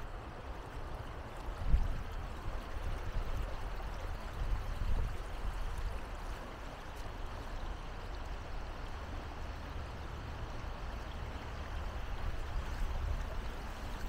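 Gentle surf washing onto a beach, with wind rumbling on the microphone and a brief louder low thump just under two seconds in.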